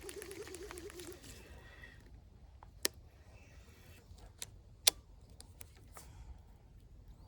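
Handling of a fishing rod and reel: a few sharp clicks and ticks over a faint low background, the two loudest about three and five seconds in.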